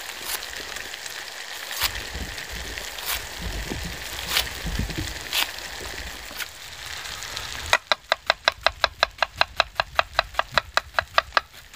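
Kitchen knife on an onion over a wooden cutting board: a few scattered clicks while the onion is peeled in the hand, then, about eight seconds in, a quick, even run of chops through the onion onto the board, about six a second.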